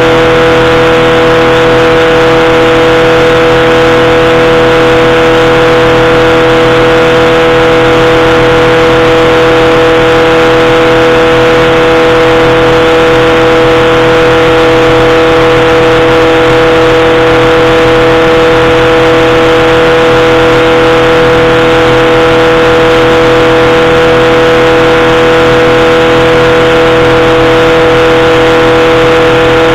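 Powered parachute's engine and pusher propeller running at a steady cruise: a loud, even drone that holds one pitch throughout.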